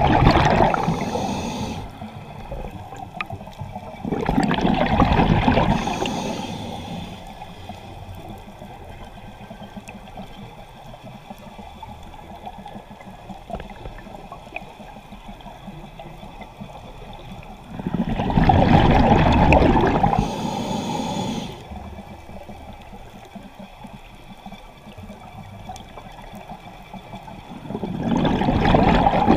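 Scuba regulator exhaust bubbles from a diver's exhalations, rushing in bursts of two to three seconds four times, with a quieter steady underwater hiss between them.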